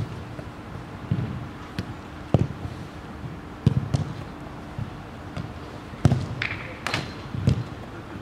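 A series of irregular dull thumps and knocks, about eight over eight seconds, over a steady background hum.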